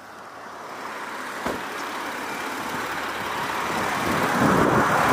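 Road traffic noise, a passing vehicle's tyres and engine, growing steadily louder as it approaches. There is a single short knock about a second and a half in.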